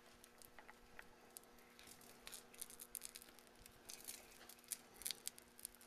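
Small paint roller working epoxy adhesive into carbon fiber fabric: a faint, sticky crackle of small ticks that grows busier after the first couple of seconds as the wet fabric is rolled out.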